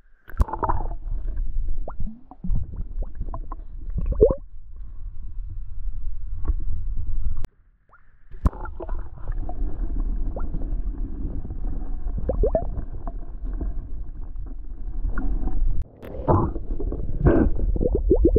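A round glass flask glugging and bubbling as it is held under water and fills, its air escaping in irregular gulps over a dull rumble. The sound breaks off twice, briefly and abruptly.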